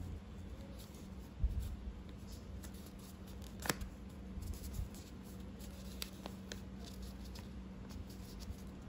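A4 paper being folded and creased by hand: faint rustling with scattered sharp crinkles, the crispest a little before halfway through.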